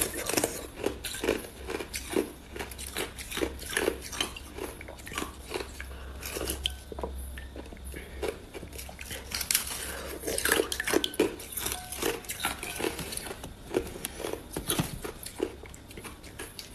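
Close-miked biting and chewing of thin sheets of clear ice: a steady run of sharp crunches and cracks, several a second.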